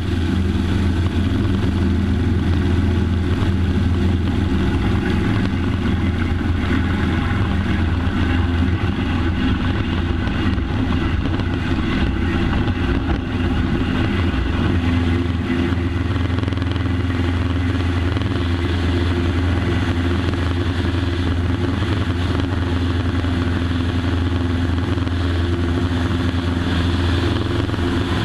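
Cessna 140's Continental O-200 four-cylinder air-cooled engine and propeller running loudly and steadily at an even pitch during the takeoff.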